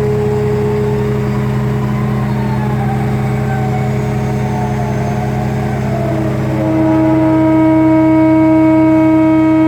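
Large hydraulic excavator running under load, with a wavering whine. About six and a half seconds in, a steady droning tone sets in and the sound grows louder. This is the extraneous noise of newly fitted hydraulic cylinders, which stopped when the original cylinders were put back.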